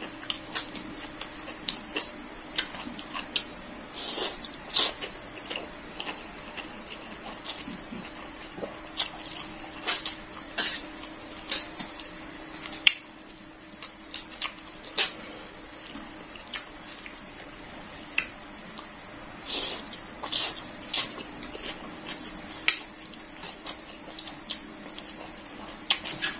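Crickets chirping steadily in a continuous high chorus, with eating sounds over it: chewing and smacking of rice noodles and many short, sharp clicks.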